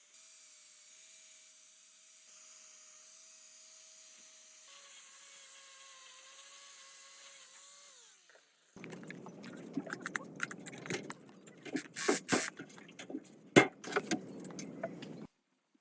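Small power tool running steadily, then spinning down about eight seconds in. After a pause, metal parts clink and knock together, with a few loud clanks.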